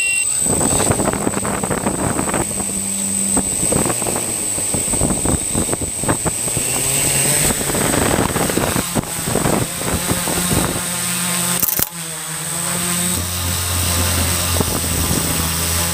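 Z700 drone's electric motors and propellers running, with a steady high whine and a hum that shifts in pitch as the drone flies. Near the end comes a single sharp knock, the drone striking the washing line, after which the motor hum drops to a lower tone.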